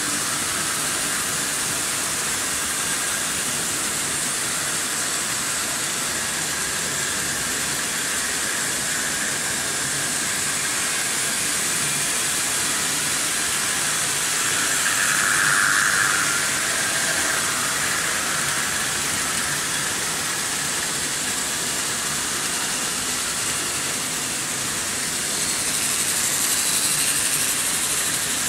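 Märklin H0 model trains running on stamped-steel M-track: a steady metallic rolling with motor hum, swelling as a train comes close about halfway through and again near the end.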